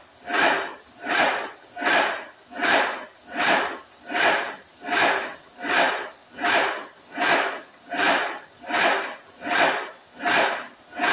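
Graco airless paint sprayer's pump cycling in an even rhythm, a hissing surge about four times every three seconds.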